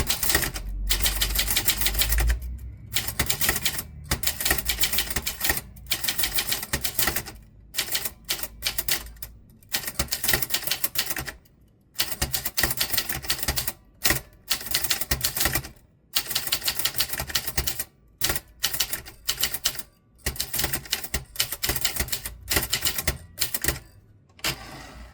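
Typewriter being typed on quickly: runs of sharp key strikes with short pauses between them. There is a low rumble in the first couple of seconds.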